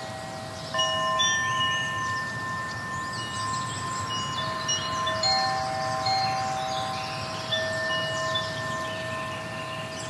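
Wind chimes ringing: several long, sustained notes that overlap, with fresh notes struck about a second in and again every few seconds, and lighter tinkling higher up.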